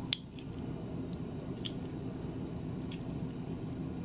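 Thick, chunky picante salsa slopping out of a glass jar into a crock pot of sauce, with a few small clicks over a steady low background hum.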